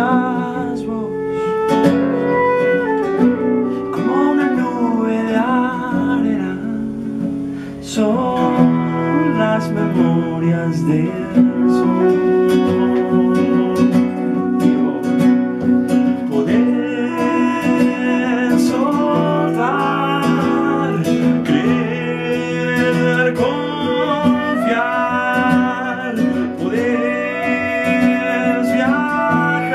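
Live acoustic folk song: a steel-less nylon- or steel-string acoustic guitar strummed, a concert flute playing the melody, and a man singing.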